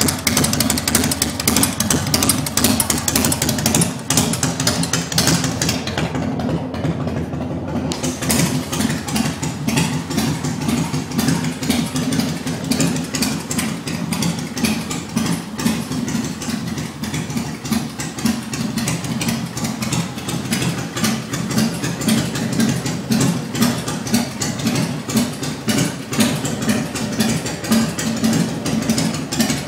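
Harley-Davidson Softail's V-twin engine idling loud with an uneven, pulsing beat, through open pipes with the baffles removed and an aftermarket cam.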